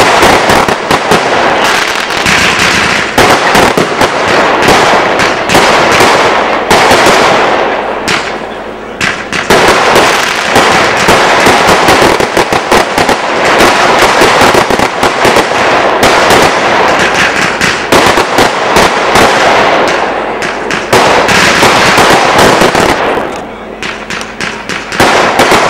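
Fireworks going off in rapid succession: a dense run of pops and bangs from launches and bursting effects. It eases off briefly about eight seconds in and again near the end before picking up.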